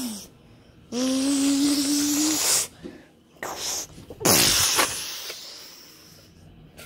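Mouth-made battle sound effects: a hissing blast with a hum under it, then a louder explosion-like burst about four seconds in that fades away over a couple of seconds.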